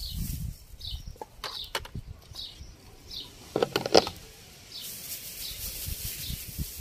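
Plastic being handled: a plastic bag crinkles and a cut-off bottle-top funnel and water jug click, with a brief louder squeak about three and a half to four seconds in as the funnel is pushed into the jug's neck. A bird chirps repeatedly in the background.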